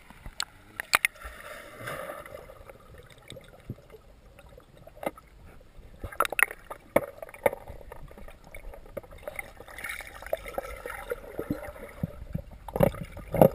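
Muffled water sounds heard from underwater in a swimming pool, sloshing and gurgling as a dog dives and paddles, with scattered sharp clicks and knocks.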